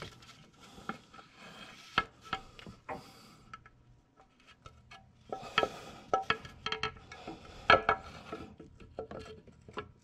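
Metal timing chain cover being fitted onto the engine's front by hand, giving irregular light metallic clicks, knocks and rubbing as it is worked over the gasket and onto its locating pins. The loudest knocks come about two seconds in and near eight seconds.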